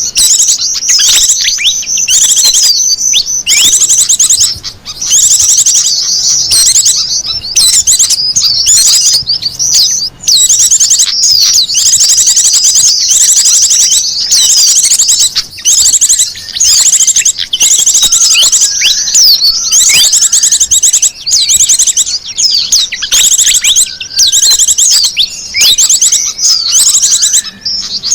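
Dense, continuous high-pitched chirping and fast trills of small birds, many calls overlapping: a bird-lure (pikat) recording meant to draw small wild birds in.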